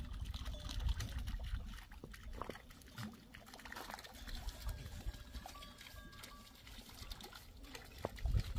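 Water pouring and trickling, over a low rumble and scattered small clicks.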